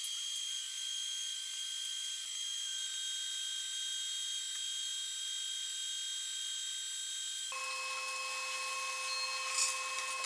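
TIG welding arc on stainless steel flat bar: a steady high hiss with fixed high-pitched whine tones. About seven and a half seconds in, the sound changes abruptly to a different set of steady, lower tones.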